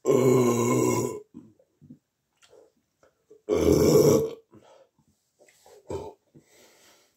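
A young man burping loudly twice after chugging fizzy cola. Each burp lasts about a second, the second about three and a half seconds in, and a brief, quieter sound comes around six seconds in.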